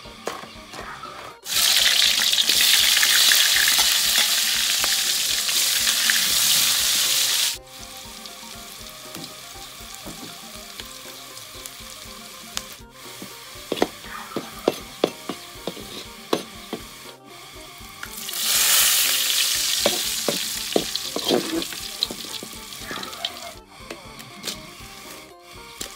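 Sliced shallots frying in hot oil in an aluminium wok. A loud sizzle starts abruptly about a second and a half in and cuts off about six seconds later. Quieter frying follows with scattered clicks of stirring, then a second loud sizzle swells up and fades away near the end.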